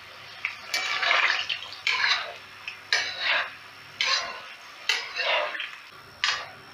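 Onion pieces frying in hot oil in a kazan, sizzling, being fried until black. A metal skimmer stirs and scrapes through them about once a second, each stroke bringing a sharp surge of sizzle and scraping.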